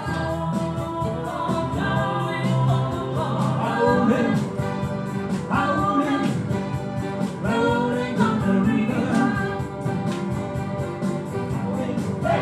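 Live electric guitar and keyboard playing a rock song together with a steady beat, with some bending lead notes.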